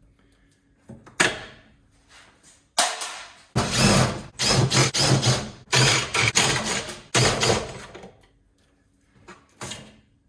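Several bursts of tool and metal-handling noise, each lasting a second or two with short gaps between, as parts are taken off an LPG instant water heater.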